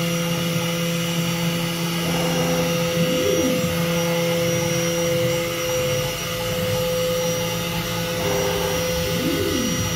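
Home-built four-axis CNC router running with a steady hum and whine. Twice, about three seconds in and again near the end, its axis drive motors whine up and then back down in pitch as the head moves.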